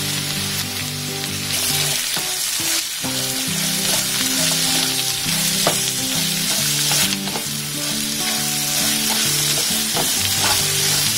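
Potato cubes frying in a little hot oil in a pan, sizzling steadily, as a wooden spatula stirs and turns them with light scrapes and taps. The spice powders and salt have just been added and are being mixed through.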